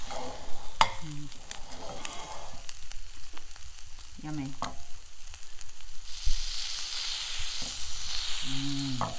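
A tuna melt sandwich sizzling as it fries in a hot frying pan, with a few short clicks and scrapes of a metal spatula against the pan. The sizzle grows louder about six seconds in.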